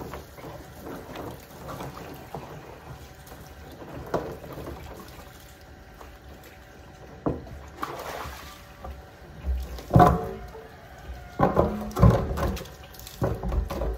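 Water from a garden hose running and splashing over a blue plastic silage drum. From about ten seconds in come several loud hollow knocks and thumps as the emptied plastic drum is tipped and set upright on the paving.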